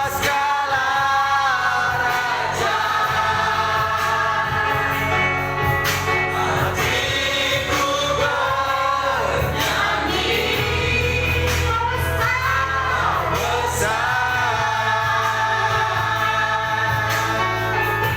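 Church worship song: a group of singers holds long, wavering notes over a band with a steady bass line and scattered drum hits.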